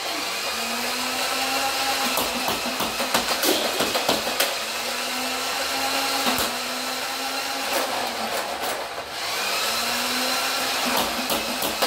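Nerf Titan CS-50's motors whirring steadily while the blaster fires darts in full-auto, with scattered sharp clicks. The whir briefly drops about nine seconds in, then picks up again.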